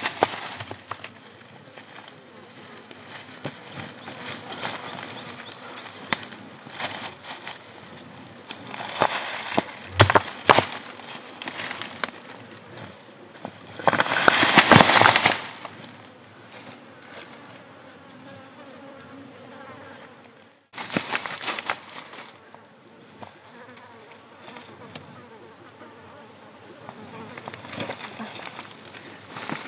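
Insect buzzing close by, among scattered sharp knocks and clicks. A louder noisy stretch of about a second and a half comes midway.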